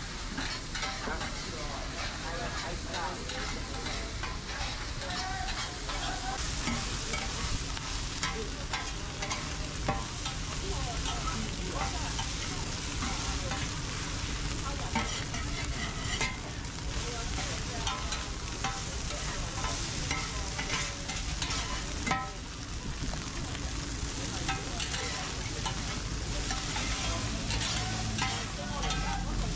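Oyster omelette frying on a wide, flat pan: a steady sizzle, with two metal spatulas scraping and clacking on the pan as the egg and oysters are turned, and a few sharper clacks along the way.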